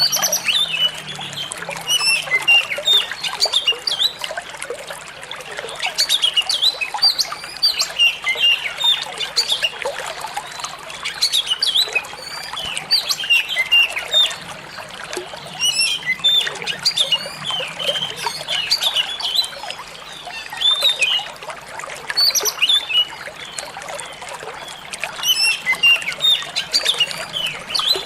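Oriental magpie-robin (kacer) singing in bursts of quick chirps and whistles a few seconds long, over a steady sound of trickling, flowing water.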